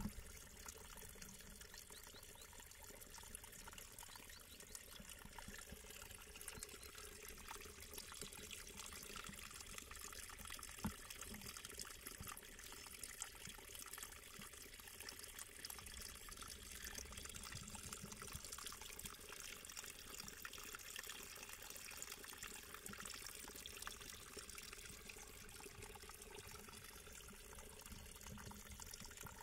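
Faint, steady trickle of shallow running water, with one short knock about eleven seconds in.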